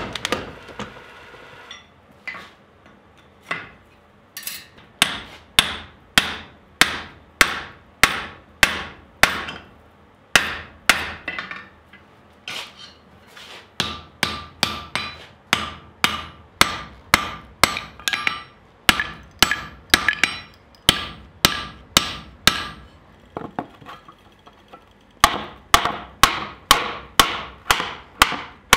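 Hand hammer striking red-hot steel held in tongs on an anvil: a long run of sharp strikes, often in pairs, about two a second, with a short break near the end. During the first two seconds the rapid blows of a power hammer die away.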